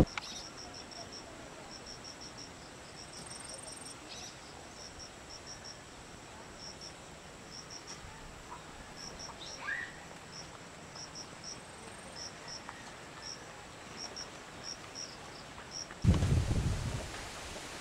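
Insect chirping: short, high pulses in twos and threes, repeating at uneven gaps over quiet outdoor background. Near the end comes a brief burst of louder, low rushing noise.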